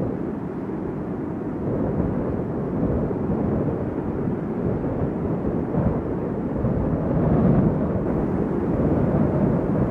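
A steady low rumbling noise with no clear pitch, swelling slightly about seven seconds in.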